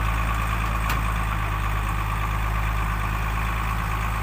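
Modified Hyundai timber truck's diesel engine idling steadily: an even low rumble with a steady high-pitched tone over it.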